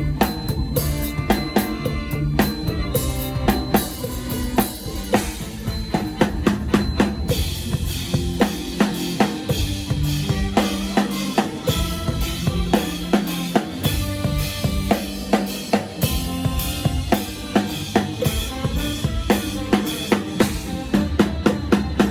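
Drum kit playing a brisk, steady lam phloen groove, with bass drum, snare and rimshot strokes close up, over the mor lam band's bass and other instruments.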